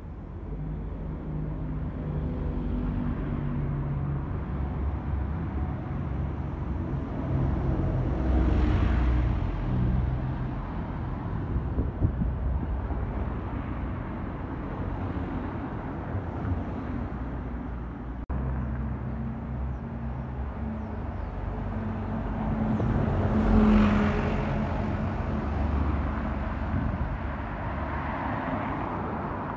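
Street traffic: double-decker buses and cars driving past with their engines running, and two louder close pass-bys, one about a third of the way in and one about three quarters of the way in.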